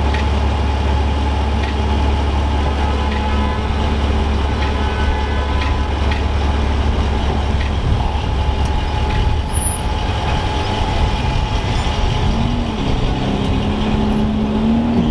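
Vehicle engine running close by with a deep, steady rumble that eases after about eight seconds. Near the end an engine note rises briefly, then holds steady.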